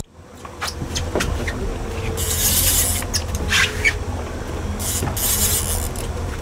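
Boat engine running steadily at trolling speed, a low hum, with two passing bursts of hiss from wind and water and a few light knocks on deck.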